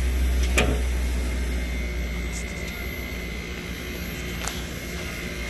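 Daikin Rebel VRV package unit running with its failing inverter compressor, a heavy low hum that weakens and turns unsteady about halfway through, over a steady high whine. The technician suspects the compressor is intermittently getting tight and drawing current spikes. A single sharp knock comes about half a second in.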